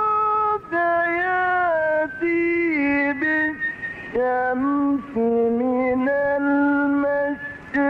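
A male Quran reciter chanting in the melodic mujawwad style, holding long notes that slide up and down between pitches, with short breaks between phrases.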